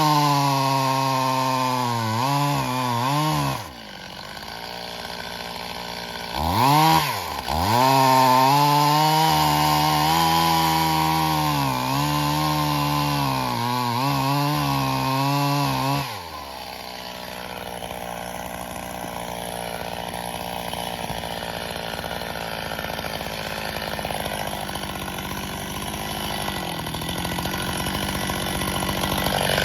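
Stihl MS 270 two-stroke chainsaw cutting birch logs at high revs, its pitch dipping as the chain bites. It drops back about 4 s in, revs up again about 7 s in and cuts until about 16 s, then settles to a quieter idle.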